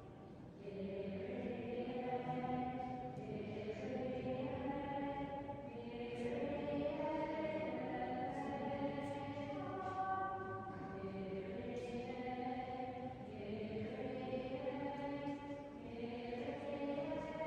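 Choir singing slow, sustained chords, each held for a second or two before moving to the next, at a quiet level.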